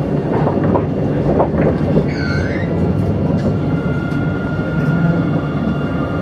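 Tram running along its track, heard from the driver's cab: a steady low rumble and rolling noise. A short high squeal comes about two seconds in, and a thin steady whine sets in about four seconds in.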